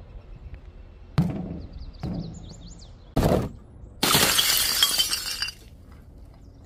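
A basketball knocks three times on a wooden ramp and paving tiles in the first three seconds. About four seconds in, a bundle of coloured-powder-filled objects smashes on the tiles with a loud breaking, glassy crash lasting about a second and a half.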